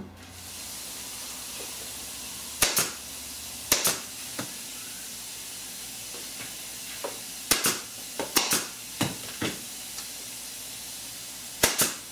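Pneumatic (air-powered) stapler firing staples through stretched fleece into a frame: about ten sharp shots, irregularly spaced and some in quick pairs, over a steady hiss.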